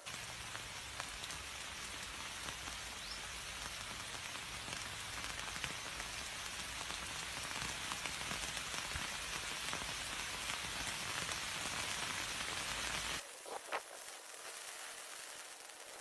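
Steady rain falling, an even hiss with scattered drop ticks, cutting off abruptly about thirteen seconds in; a couple of clicks follow, then a fainter hiss.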